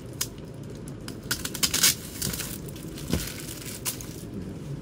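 Clear plastic wrapping crinkling and crackling as it is handled and picked open, in irregular crackles with a louder cluster a little under two seconds in and a few single snaps after.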